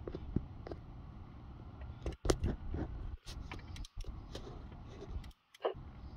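Ratchet wrench and socket tightening the power steering belt's tensioner bolt. Irregular metallic clicks and knocks, bunched in the middle and again near the end, over a steady low background.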